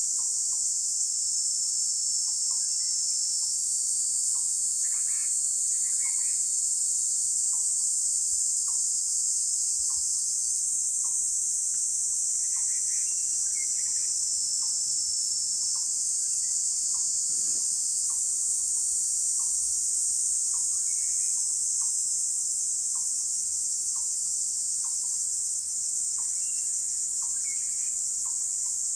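A dense night chorus of insects such as crickets: a steady, high-pitched, unbroken trill with a pulsing edge. Through it run short, low ticks more than once a second, with a few faint chirps now and then.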